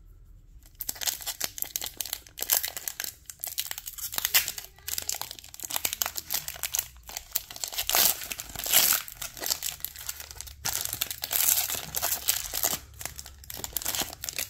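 Foil wrapper of a Pokémon card booster pack crinkling and tearing as it is opened by hand, a dense run of crackles starting about a second in.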